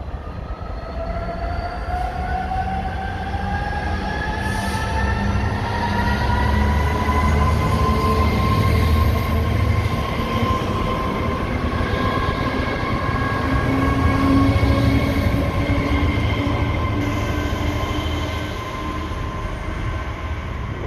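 Diesel freight train passing close by: a Class 66 locomotive and a string of tank wagons rumbling over the rails, with several high squealing tones that climb in pitch over the first several seconds and then hold. The sound eases off near the end as the train moves away.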